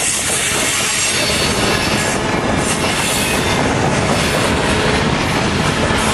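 Freight train's covered gondola cars rolling past at close range: a steady, loud rumble and clatter of steel wheels on the rails.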